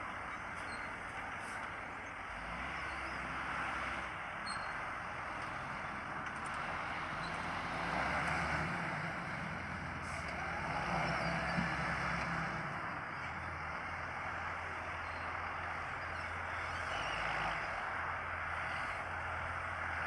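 John Deere 6620 tractor's six-cylinder diesel engine working steadily under load as it pulls a three-furrow mouldboard plough, its low drone shifting slightly in pitch, with a steady rushing hiss over it.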